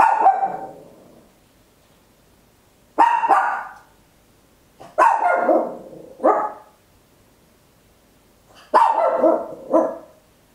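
Papillon barking very loud: four bouts of one or two sharp barks, roughly every three seconds, with quiet between them.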